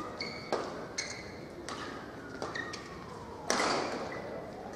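Badminton rackets striking a shuttlecock in a warm-up rally, about five hits with a short ringing ping from the strings after each; the hit about three and a half seconds in is the loudest and echoes in the hall.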